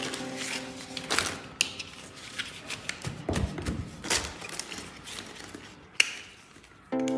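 Handling of plastic toy gun parts: scattered clicks, taps and light rattles, with one sharp click about six seconds in.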